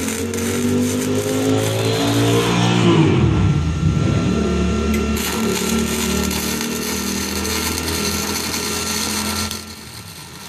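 Electric welding arc crackling as a seam on galvanized sheet-metal ductwork is welded. An engine runs underneath, its pitch dipping and rising again about three seconds in. The sound briefly drops near the end.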